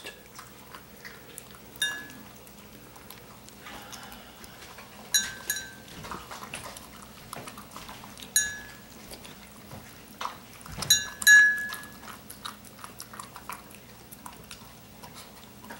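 Dogs eating from their bowls: soft licking and chewing, broken by about five short, bright metallic clinks as a collar tag knocks against the bowl, the loudest pair about two-thirds of the way through.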